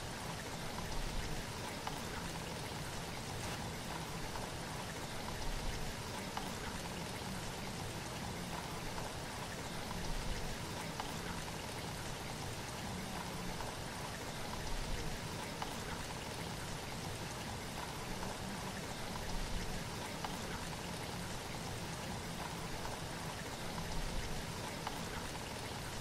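Steady rushing water noise, rising in a soft swell about every four to five seconds.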